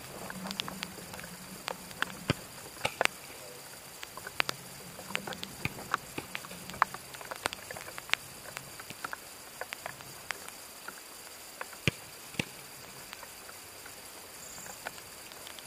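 Irregular sharp thuds and taps of footballs being struck, bouncing on artificial turf and caught during goalkeeper drills, with a faint low hum through the first half.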